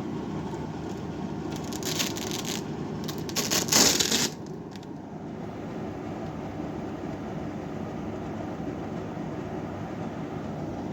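Portable air conditioner (Iris Ohyama IPA-2822G) running with a steady, low operating noise. Two brief bursts of rustling, scraping handling noise come about two and four seconds in.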